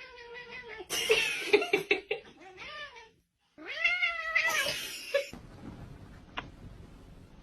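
Domestic cat meowing: a run of drawn-out, wavering meows in the first three seconds, then after a brief silence one long meow that rises and falls in pitch.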